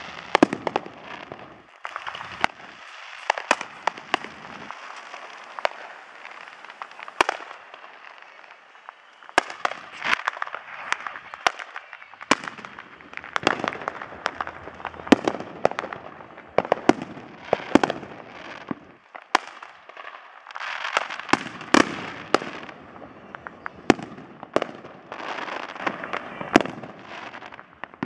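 Consumer aerial fireworks going off: many sharp bangs and pops at irregular intervals, with crackling between them.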